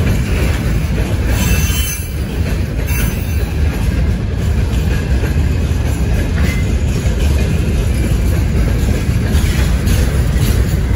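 Freight train hauled by a 2ES6 electric locomotive running along the line, with a steady low rumble of wheels on rail. A brief high squeal from the wheels comes about one and a half seconds in.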